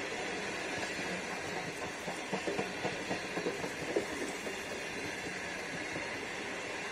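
Stainless-steel passenger carriages rolling past on the track, with a steady rushing rumble. Between about two and four seconds in, the wheels give a quick run of clicks and clacks.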